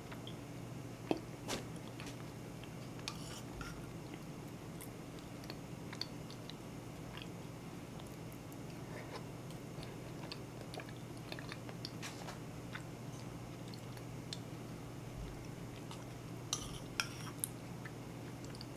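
Eating thick bean and corn-grit porridge with a metal spoon: soft chewing and mouth sounds, with sharp clinks of the spoon against a ceramic bowl, a couple about a second in and a cluster near the end. A steady low hum runs underneath.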